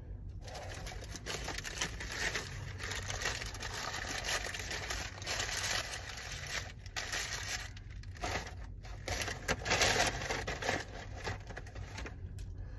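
Paper sandwich wrapper and brown paper bag crinkling and rustling as they are handled, in bursts with a few short pauses, loudest about ten seconds in.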